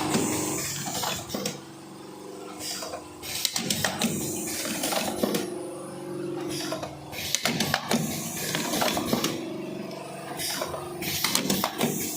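Automatic cartoning machine running: repeated mechanical clatter and knocking from its box-forming and filling strokes, recurring every second or two, with short bursts of hissing air.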